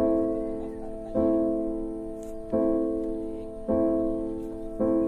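Background piano music: a chord struck about every second and a quarter, each one ringing on and fading before the next.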